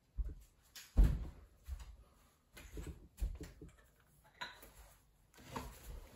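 Handling noises as he fetches a craft knife: a scattered series of knocks and clatters of objects being picked up and set down, the loudest thump about a second in.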